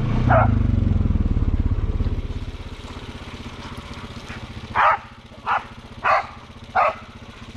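Honda Foreman 500 ATV engine running under throttle, then easing off to a low idle about two seconds in. A dog barks once near the start and four times in quick succession in the second half.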